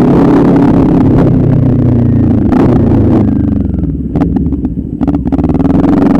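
Motorcycle engine running while riding, easing off about four seconds in as the level drops, then pulling again near the end.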